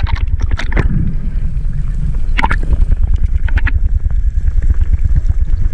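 Rapid low thumping and thrumming underwater from a speared yellowfin tuna struggling and beating its tail, with a few sharp clicks. The vibration of a struggling, wounded fish draws sharks in.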